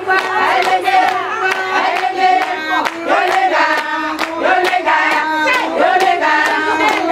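A group of voices singing together over a steady, fast percussive beat of about three to four strokes a second.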